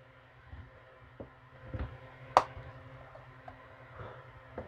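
Hard plastic case of a Weboost Drive X RV cell booster unit being pushed into its wall-mounted bracket: a few light clicks and knocks, with one sharp click about two and a half seconds in as it seats. A faint steady low hum runs underneath.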